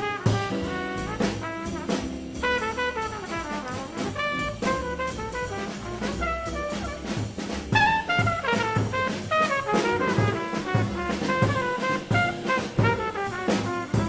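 Bebop jazz played by a small band: a horn plays quick runs of notes over bass and drums.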